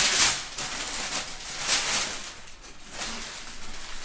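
Crumpled brown packing paper crinkling and rustling as it is handled and pulled out of a cardboard box, in irregular bursts that are loudest near the start.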